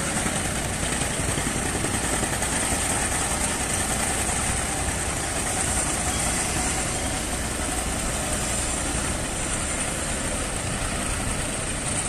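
Construction-site noise: heavy machinery diesel engines running steadily with a low rumble, under a steady high hiss, with no distinct knocks or bangs.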